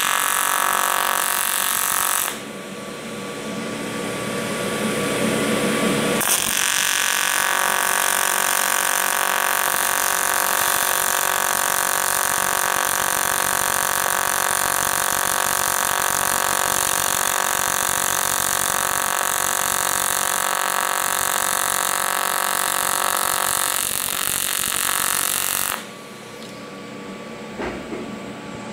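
AC TIG welding arc on aluminum, a steady electric buzz. It drops quieter for a few seconds near the start, rises back up, holds steady, and stops a few seconds before the end when the arc is broken.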